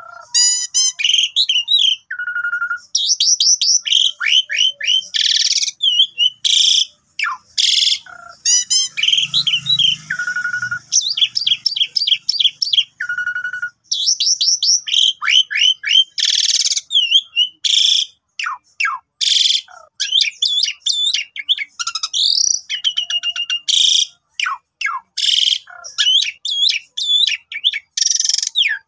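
Asian pied starling (jalak suren) singing a long, varied song in full voice. It mixes quick runs of falling whistles, harsh rasping notes and rapid repeated chatter, with a few held whistles, in phrases broken by short gaps.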